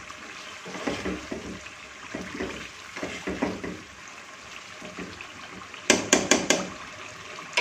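Beef korma masala sizzling in a non-stick frying pan while a spoon stirs and scrapes through it, the meat fried down well with its spices. About six seconds in, a utensil knocks sharply on the pan four times in quick succession.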